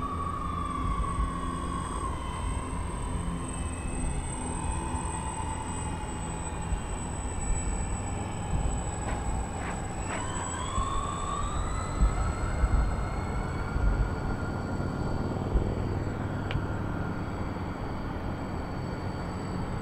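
Propellers of a large multi-engine RC model of the Hughes H-4 Spruce Goose, droning at a pitch that slowly sinks as it throttles back onto the water, then rises sharply about halfway through as the throttle is opened for takeoff and holds at the higher pitch.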